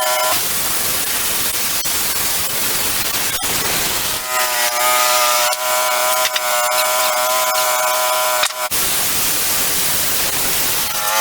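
Wood-Mizer portable band sawmill running: a noisy rush gives way at about four seconds to a steady high whine, which breaks back into the rushing sound a couple of seconds before the end.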